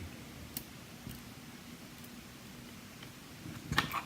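Faint clicks of small metal lock parts being handled: a couple of light ticks about half a second and a second in, then a quick cluster of clicks near the end.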